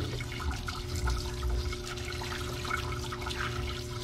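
Parts cleaner running as metal U-joint bolts and saddles are rinsed: solvent pouring and trickling over the parts with small clinks, over a steady hum. A sharp clank right at the start.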